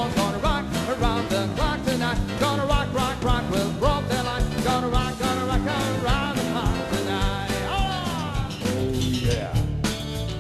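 Live band playing rock and roll: a steady beat with a wavering lead melody line on top and a quick sliding glide in pitch about eight seconds in.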